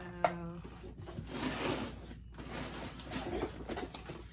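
Rummaging through sewing supplies: rustling and small knocks of items and packaging being handled and moved, with a sharp click just after the start.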